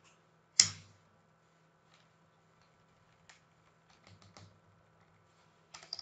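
Computer keyboard keystrokes. One sharp, loud key click comes about half a second in, then a few faint scattered clicks, then a quick run of typing just before the end.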